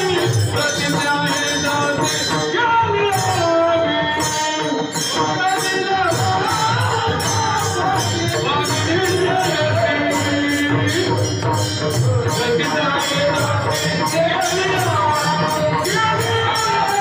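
Varkari bhajan: voices singing an abhang to a mridang (two-headed barrel drum) and the steady clashing of many hand cymbals (taal), about three clashes a second.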